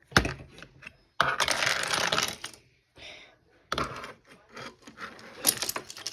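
Sharp plastic clicks and clatter from keycaps being worked loose and popped off a keyboard, with a stretch of scraping about a second in.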